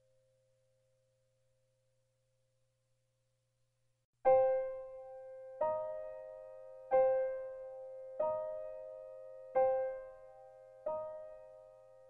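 Background piano music: after about four seconds of near silence, single notes are struck about every second and a half, each ringing out and dying away.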